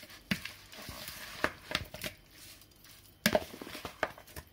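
Metal utensil stirring seasoned raw pork pieces in a plastic bowl: soft wet squelching broken by several sharp clicks as the utensil knocks against the bowl, the loudest a little over three seconds in.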